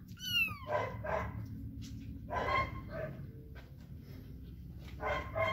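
A dog barking several times in short separate calls, with a brief high whine falling in pitch near the start.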